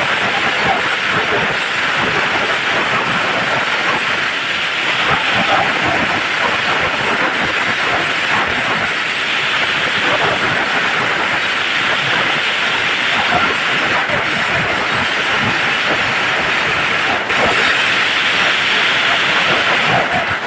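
Dreamlight 'Sawa' 3000-round string firecracker (a long belt of firecrackers) going off as a dense, unbroken crackle of rapid small bangs.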